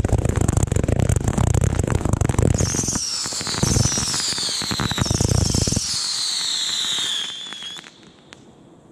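Three 500-gram consumer fireworks cakes firing a rapid barrage close up: dense shots and bursts with heavy thuds for about six seconds. From about two and a half seconds in, several high whistles falling in pitch run over them, and the whole volley dies away about eight seconds in.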